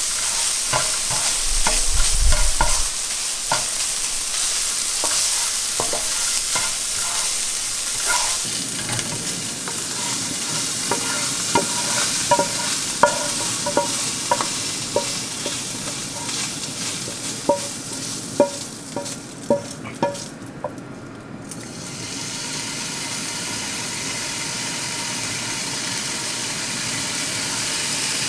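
Ground beef sizzling in a skillet while a utensil breaks it up and stirs it. In the middle comes a run of sharp clicks as a spoon scrapes and taps the cooked beef out of the tilted pan into a bowl.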